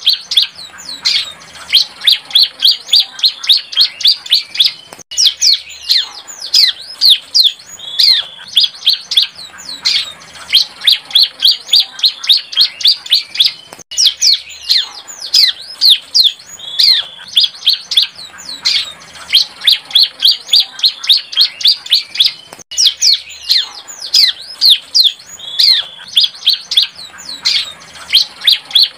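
Young bar-winged prinia (ciblek) singing its still-developing song. It gives fast runs of short, high chirps and trills, with a brief break about every nine seconds.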